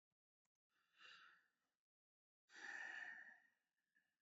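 Two faint breaths close to the microphone, one about a second in and a longer one about halfway through, in otherwise near silence.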